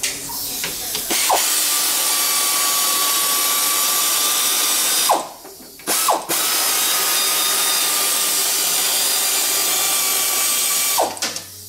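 Air-powered ratchet or similar workshop power tool running steadily in two long stretches of about four and five seconds, with a short stop and a brief blip about halfway through.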